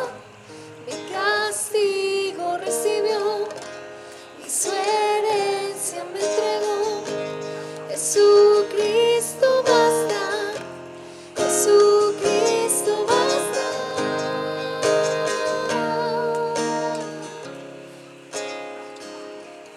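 A worship song: a voice singing with acoustic guitar strummed in chords.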